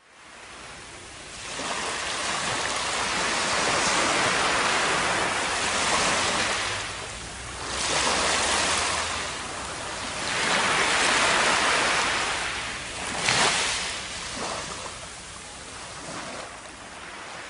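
Shallow surf washing up over a sandy beach, the rush of water swelling and fading in several waves, with a brief louder surge about thirteen seconds in.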